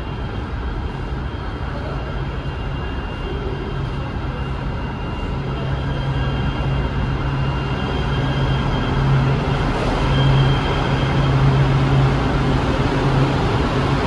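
Light rail train running with a steady low hum and a faint high whine, growing gradually louder.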